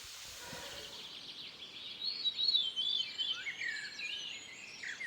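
A songbird singing a quick string of chirps and gliding whistles that starts about two seconds in, over steady outdoor background noise.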